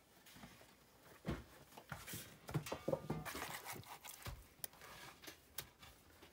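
Masonry work on a stone wall: a trowel scraping mortar and stones knocking and grating as they are set by hand, in irregular short scrapes and knocks that are busiest in the middle.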